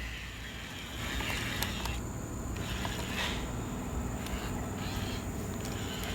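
Small electric motors and gearboxes of radio-controlled construction models whirring in short stop-start runs over a low rumble.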